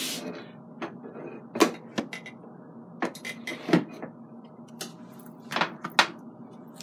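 Scattered short knocks and clicks of a saucepan and its lid being handled on a gas stove, two of them close together near the end as the lid is lifted off. A low steady hum runs underneath.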